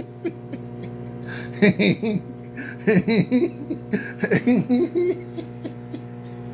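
Bouts of laughter, three short runs of chuckling, over the steady hum of a running microwave oven.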